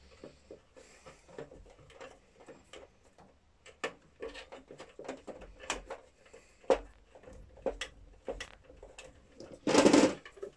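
Scattered light clicks and taps from hand tools and electrical wire being handled, with a short, louder rustle about ten seconds in.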